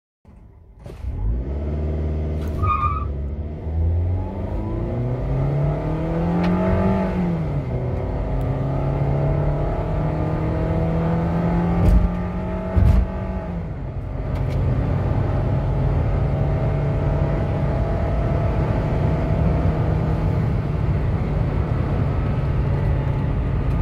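Perodua Myvi's 1.5-litre naturally aspirated four-cylinder engine at full throttle through its four-speed automatic, heard from inside the cabin. The engine note climbs, drops sharply at upshifts about seven and fourteen seconds in, and pulls on steadily at high revs. Two sharp knocks come around twelve to thirteen seconds in.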